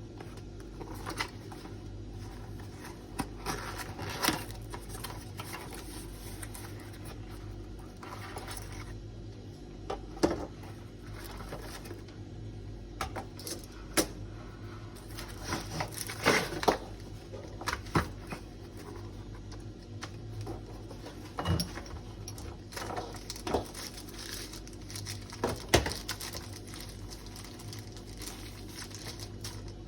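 Packaging and a lamp being handled during unboxing: irregular clicks, taps and rustles scattered through, over a steady low hum.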